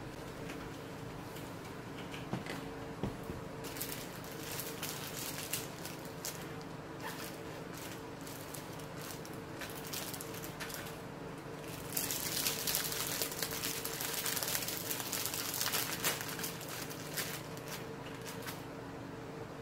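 Crinkling and rustling of a clear plastic bag as soft plastic squid worm lures are handled and pulled out of it, loudest from about twelve to seventeen seconds in, over a steady low hum.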